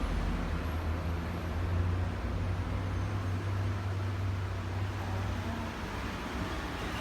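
Yorkshire terrier snoring in its sleep: a low, steady rumble that eases off about six seconds in.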